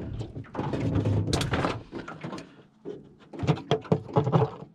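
Handling noise, then a run of short knocks and clatters from about three and a half seconds in as the split plastic lid of a cooler is lifted open.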